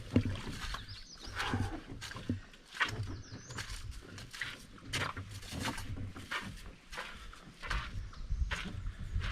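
Footsteps climbing a steep portage trail, roughly one step a second, with heavy breathing from someone carrying a load.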